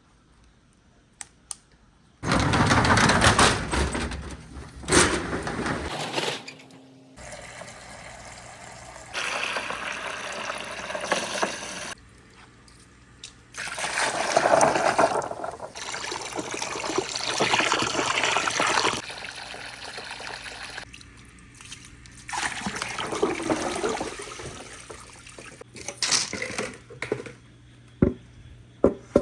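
Water pouring and splashing in several stretches that start and stop abruptly, then a few sharp clicks near the end.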